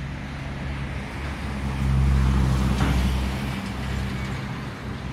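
Street traffic: a motor vehicle's engine running as it passes close by, growing louder about two seconds in and then fading, over a steady hum of road noise.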